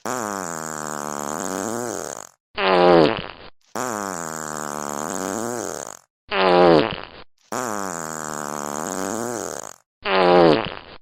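Fart sounds: long drawn-out farts of about two and a half seconds, each followed by a shorter, louder one about a second long. The same pair repeats three times, with short gaps between.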